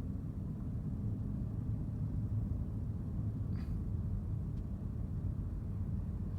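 Ford car's engine and tyre noise heard from inside the cabin while driving, a steady low rumble. One brief sharp sound cuts in about three and a half seconds in.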